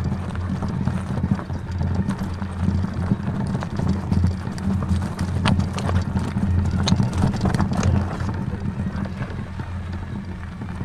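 A vehicle driving over a rough, rutted track: a steady low engine rumble with irregular knocks and rattles from the bumps.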